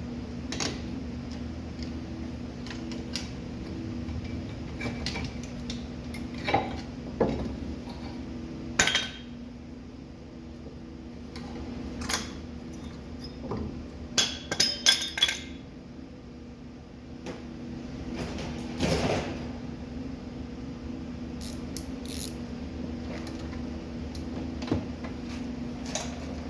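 Metal tools and parts clinking and knocking now and then during brake work, with a quick run of clinks in the middle, over a steady low hum.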